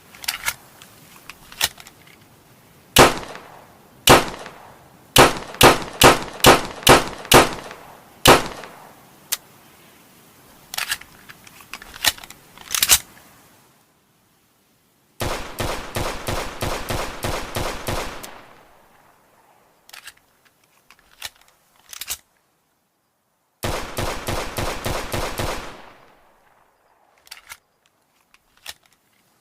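Luger pistol gunshots: a few single shots and a quick string of about six, then two sustained runs of rapid fire lasting two to three seconds each. A few faint light clicks fall between the runs.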